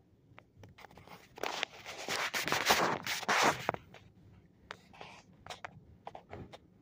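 Automatic tunnel car wash working over the car, heard from inside the cabin. A loud hissing rush of water and washing equipment starts about a second and a half in and lasts about two seconds, then gives way to scattered light taps and ticks on the car.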